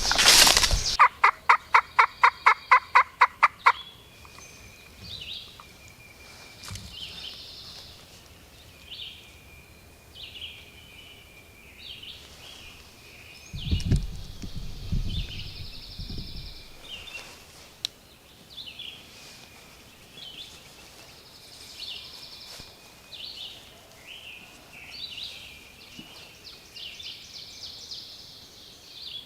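A loud, even series of about fourteen quick turkey notes over roughly three seconds. Then songbirds call on and off, with a spell of low rumbling noise about halfway through.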